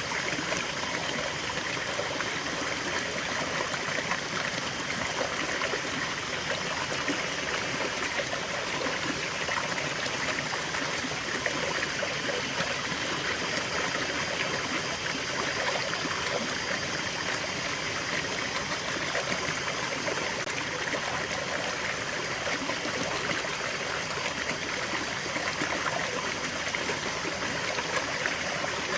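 Small stream of water running and trickling steadily over stones, an even, unbroken rush of water.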